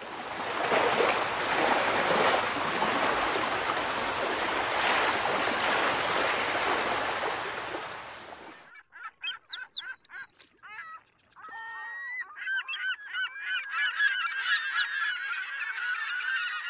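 A steady rushing noise that fades out about eight seconds in. It is followed by a flock of birds calling, with many overlapping honking and chirping calls.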